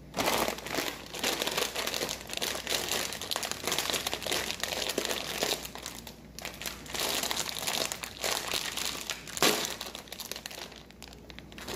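Foil-lined Lay's potato chip bag crinkling and rustling as it is handled and pulled open, with one sharp snap about nine and a half seconds in as the sealed top gives way.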